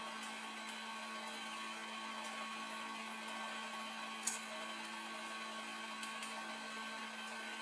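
A steady hum with several fixed tones, like a motor or electrical appliance running, under a few light clicks of small plastic camera parts being handled; one sharper click about four seconds in is the loudest sound.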